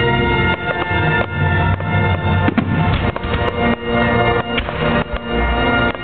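Music with long held notes playing throughout, mixed with the repeated bangs and crackle of aerial firework shells bursting.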